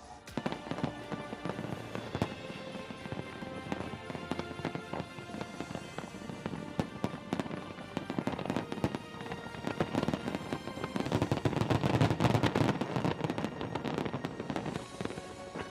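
Fireworks display: many rapid bangs and crackles of bursting shells over music, the bursts coming thickest and loudest about three-quarters of the way through.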